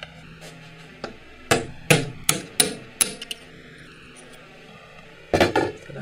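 Sharp metallic knocks and clanks from a Subaru R160 differential carrier being worked in a steel bench vise: about seven knocks spread over the first few seconds, then a louder quick cluster near the end.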